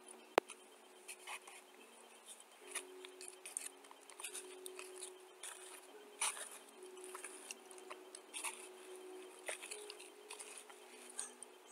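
Eating dry clay powder with a plastic spoon from a bowl: irregular small clicks and crackles, with one sharp click about half a second in.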